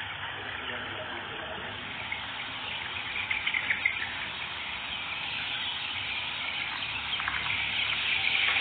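A dense chorus of peeping from a crowd of Arab-breed chicken chicks, countless overlapping chirps merging into one continuous chatter that grows louder near the end.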